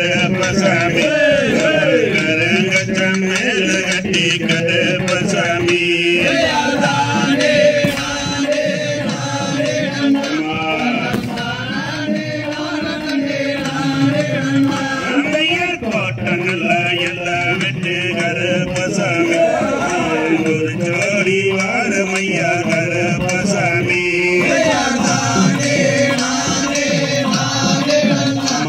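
Valli kummi folk dance song: a chant-like sung melody over musical accompaniment, running without a break.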